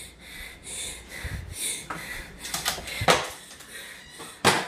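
Faint scattered clicks, taps and rustling of a handheld phone being carried through a kitchen, with a short, sharp, louder noise near the end.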